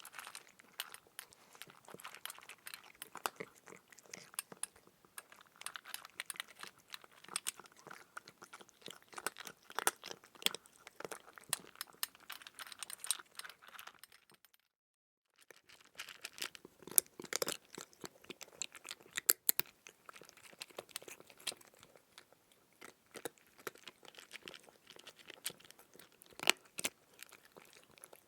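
Close-up crunching and chewing of crisp food: a dense, irregular run of crackles and crunches, broken by about a second of dead silence halfway through.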